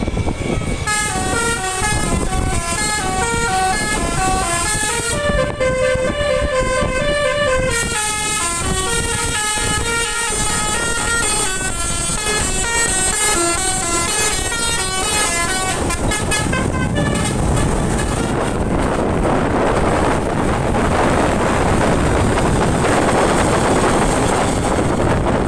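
Bus telolet horn, a set of tuned air horns, playing a fast stepping tune of many short notes for about sixteen seconds. The tune then stops, and a loud steady rushing noise follows.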